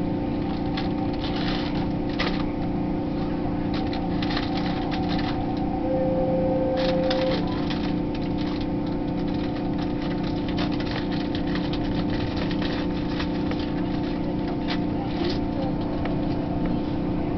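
Electric passenger train running at speed, heard from inside the carriage: a steady rumble with a constant motor hum and scattered clicks and rattles. A short steady tone sounds for about a second and a half, some six seconds in.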